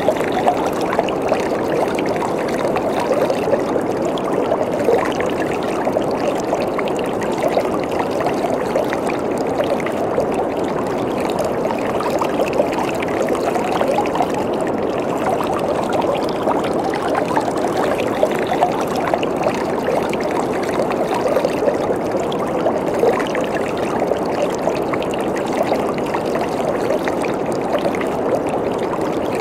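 Waterfall: water falling and splashing in a steady, unbroken rush, with small splashes flickering through it.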